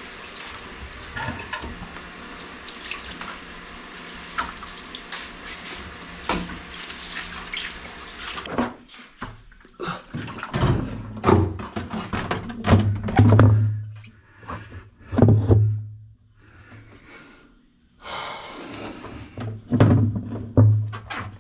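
Water running steadily for about the first eight seconds. It gives way to knocks and clatter and a low hum that comes and goes in pulses of about a second.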